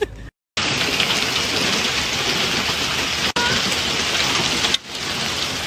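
Rain falling steadily, an even hiss that starts abruptly just after a brief silent gap and cuts off suddenly near the end, with a single click about three seconds in.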